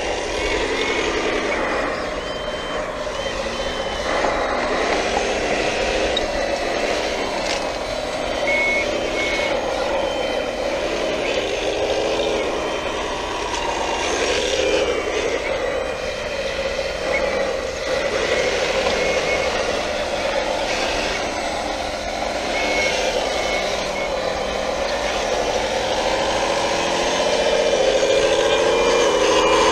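Sound system of a 1/14-scale RC hydraulic wheel loader: a simulated heavy-machine engine rising and falling in pitch as it is driven and the bucket is worked, with short electronic reversing beeps several times.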